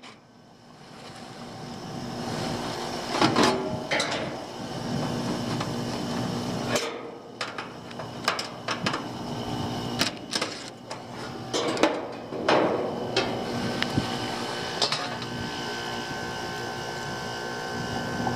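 Steady mechanical hum from the air-conditioning condensing equipment, with repeated sharp metallic knocks, clatters and scrapes as the condenser's sheet-metal service panel is worked loose and lifted off.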